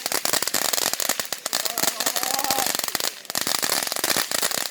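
Fireworks crackling: a fast, dense run of sharp pops with no let-up, ending on a louder bang.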